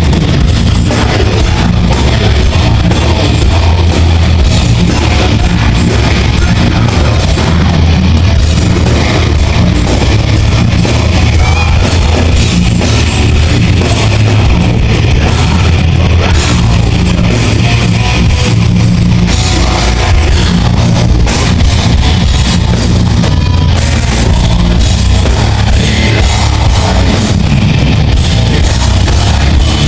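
Heavy metal band playing loud, with electric guitar over a heavy low end of bass and drum kit.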